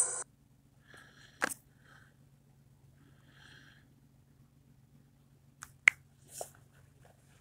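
A ghost-box app's hissing noise cuts off just after the start. Then near quiet with a low hum, soft breaths and a few faint clicks from handling the phone, the sharpest about six seconds in.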